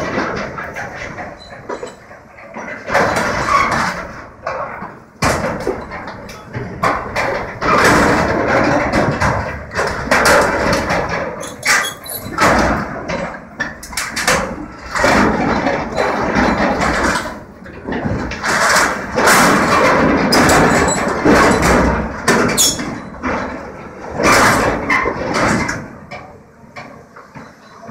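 Demolition machine with a big hydraulic shear working scrap metal: irregular crashes, clanks and scraping of steel pipes and sheet, coming in loud bunches every second or two, over the machine's running engine.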